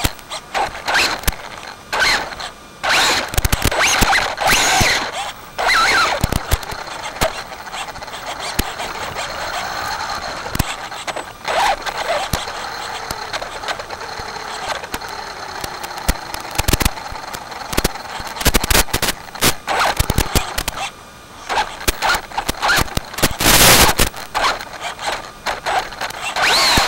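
A radio-controlled 4x4 Slash VXL truck's brushless electric motor and drivetrain whining, the pitch rising and falling with the throttle. Many sharp clicks and crackles run through it.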